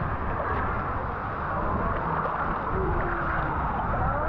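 Steady low rumbling noise with faint voices in the background.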